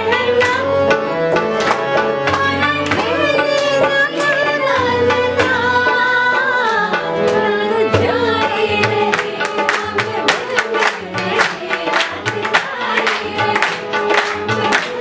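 A group of voices singing together to a hand drum beaten in a steady rhythm. The drum strokes become more prominent about halfway through.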